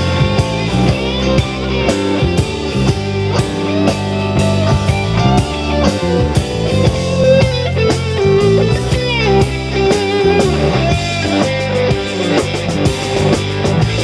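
Blues-rock band playing an instrumental break: a guitar lead with bent, sliding notes over a steady drum kit beat.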